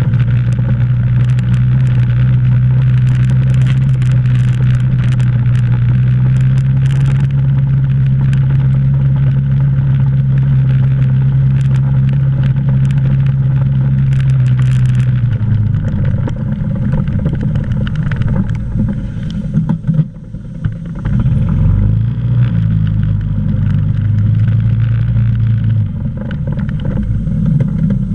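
ATV engine running at a steady pace as the quad drives along a rough trail, with scattered clicks and rattles. About halfway through the engine note falls away and dips, picks up steady again for a few seconds, then drops near the end as the quad slows to a stop.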